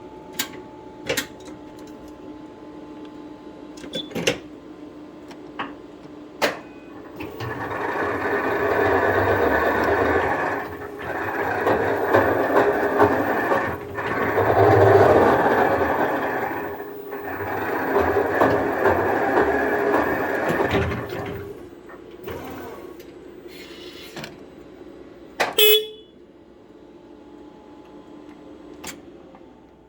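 Electric forklift motor driven by a freshly repaired Zapi motor controller, running in four spells of about three seconds each with short breaks between them, and sharp clicks before and after the runs.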